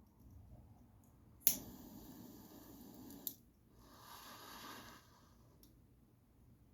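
A lighter clicks and its flame hisses for under two seconds, cut off by a second click. About half a second later comes a breathy rush lasting about a second.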